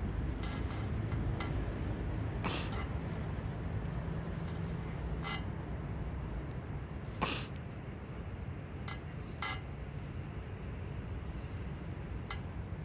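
A steady low rumble, with about half a dozen short, sharp chips or clicks scattered through it; the loudest comes about seven seconds in.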